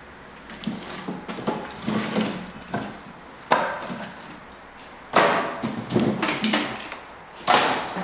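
Irregular hard knocks and clatter on wood, about nine in all, the loudest about three and a half, five and seven and a half seconds in.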